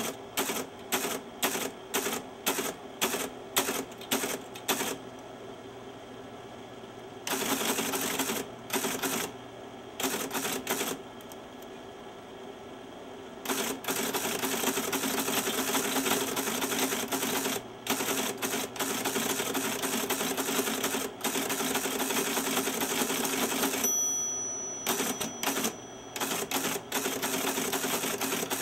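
Teletype Model 33 ASR being typed on, each keystroke printing and punching paper tape with a sharp mechanical clack. Keystrokes come separately at about two a second, then after a brief pause run together into long stretches of fast, continuous clatter, over a faint steady hum.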